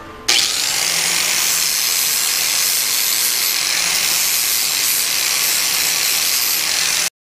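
Angle grinder running steadily as it grinds a piece down. It starts just after the beginning and stops abruptly near the end.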